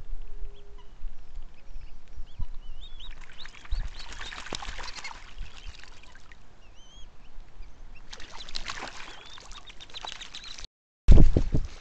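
Black-bellied whistling ducks splashing as they bathe in shallow pond water, with short high whistled calls now and then. Near the end the sound cuts out for a moment and a brief loud low thump follows.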